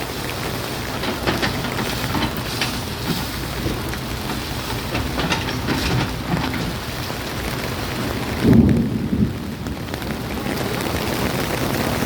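Water splashing down steadily, as a backhoe douses itself and a transit mixer truck, with a heavy low rush of water about eight and a half seconds in.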